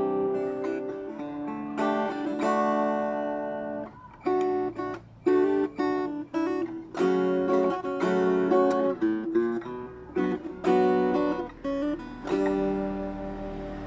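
RJ Acousticaster acoustic-electric guitar being played: chords ring out for the first few seconds, then a run of short, separate chord strokes with brief gaps between them.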